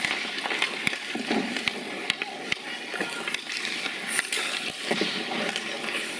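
Ice hockey skates scraping and carving on the rink ice, with sharp clacks of sticks hitting pucks scattered throughout and children's voices in the background.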